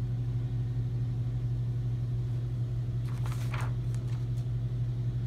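Steady low hum that runs without change, with a brief soft rustle about three seconds in.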